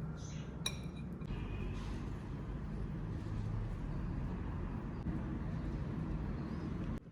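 A single sharp clink, like hard tableware struck lightly, with a brief ring about half a second in, over a steady low background rumble that cuts off near the end.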